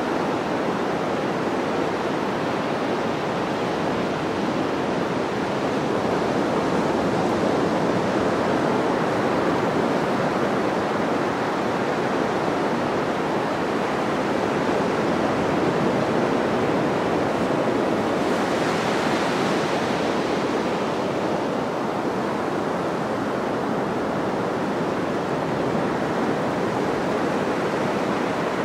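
Sea surf breaking on a beach, a steady wash of waves. About eighteen seconds in, one wave rushes in with a brighter hiss for a couple of seconds.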